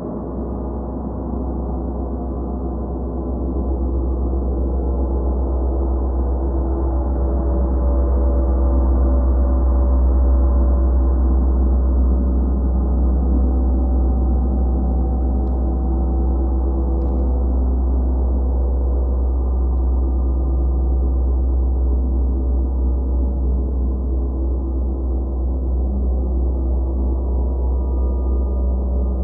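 Gong played as a continuous wash: many overlapping ringing tones over a deep low hum, with no separate strikes standing out. It swells over the first ten seconds or so, then holds steady.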